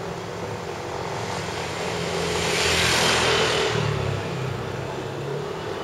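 A road vehicle passing close by on the street, its engine and tyre noise swelling to a peak about halfway through and then fading away.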